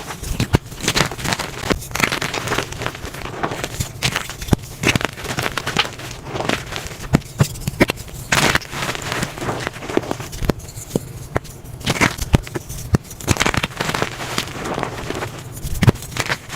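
Blocks of gym chalk being crushed and crumbled, a dense, irregular run of crisp crunches and crackles.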